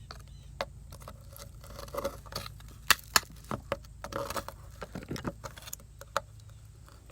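Scattered clicks, light metallic clinks and rattles of hand tools and small parts being handled, with two short stretches of rustling and clattering, over a steady low hum.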